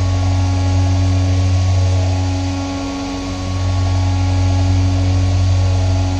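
DIY epoxy-granite CNC vertical mill roughing an aluminium plate with an end mill: a steady humming cutting tone from the spindle and cut over a steady hiss of flood coolant, easing briefly about three seconds in before building again.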